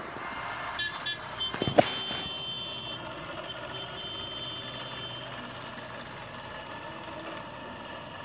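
Road traffic: a steady hum of cars on a street, with broken high-pitched beeping over the first few seconds and a short knock just under two seconds in.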